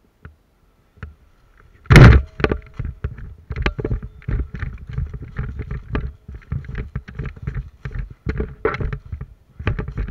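A sharp, loud knock about two seconds in, followed by a run of irregular knocks, clicks and rustling, like gear and body-mounted microphone handling noise from a moving airsoft player.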